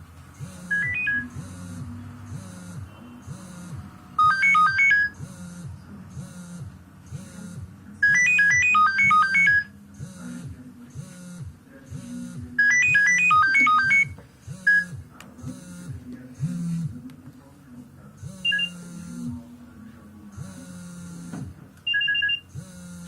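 Nokia 7610 ringtone playing: a steady electronic drum beat about two hits a second, with loud phrases of quick, high beeping melody notes breaking in every few seconds.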